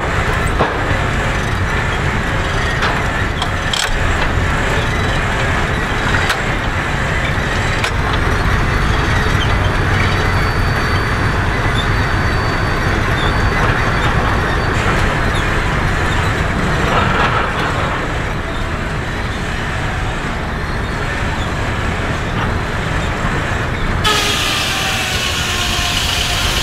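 Steam-powered portable sawmill running: a steady, loud mechanical din from the engine and the belt-driven saw. Near the end the sound turns brighter and hissier, with sliding tones.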